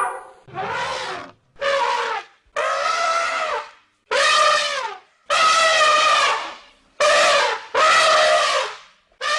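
Elephant trumpeting: seven brassy calls in quick succession, each lasting about half a second to a second, some sliding slightly in pitch.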